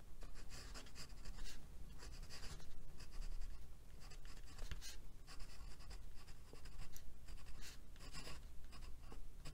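Glass dip pen nib scratching across watercolor paper in a quick run of short pen strokes with brief pauses between them, as a line of handwriting is written.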